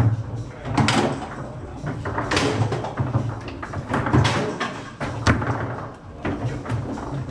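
Foosball table in play: a series of sharp, irregular knocks and bangs as the ball is struck by the plastic men and rods clack against the table, with a steady low hum underneath.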